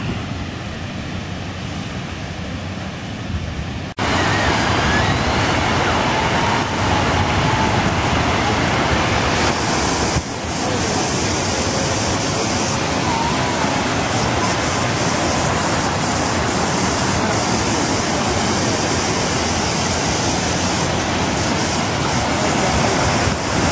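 Water pouring steadily over a low concrete weir and rushing among the rocks below. The sound starts abruptly and loud about four seconds in, after quieter outdoor ambience.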